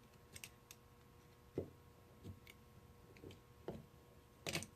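Faint, scattered clicks and taps of hand tools and metal parts being handled while screws are worked loose on an old pneumatic impact wrench, with the strongest tap near the end.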